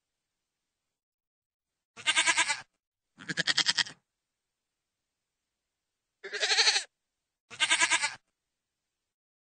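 Goat bleating: four short, wavering bleats in two pairs, with dead silence between the calls.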